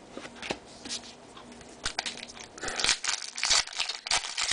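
Crinkling and rustling of a foil trading-card pack wrapper and cards being handled, starting as scattered light clicks and growing into denser, louder crackling from about halfway through.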